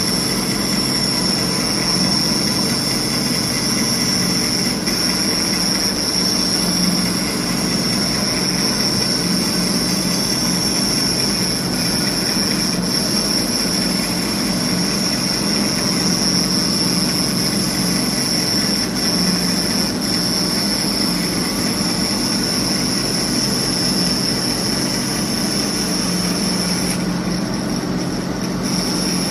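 CNC abrasive fast-wire foam cutting machine running steadily while it cuts polyurethane foam: a constant high-pitched whine over a low hum.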